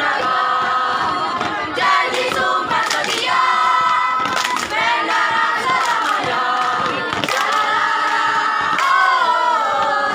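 A troop of young scouts singing a yel-yel cheer song together in unison, loud and unbroken throughout.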